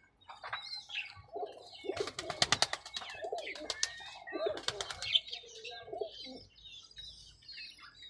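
Pigeons flapping their wings in two quick bursts of rapid claps, about two seconds in and again around five seconds, among low wavering cooing, with high chirps from other birds.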